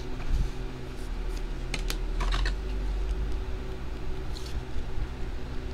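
Small sharp clicks and taps of trading cards and rigid plastic top loaders being handled, a card being slid into a top loader, most of them bunched together from about one to two and a half seconds in. A steady low hum runs underneath.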